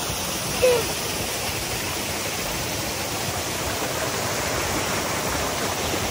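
Steady rush of flowing stream water, with one short, louder sound just under a second in.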